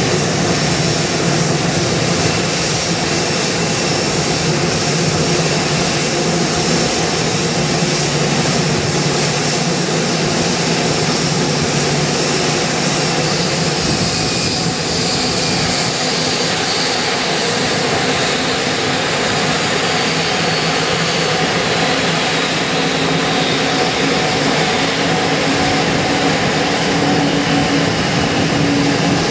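Jet airliner engines running steadily on the apron: an even rumble with a high whine over it.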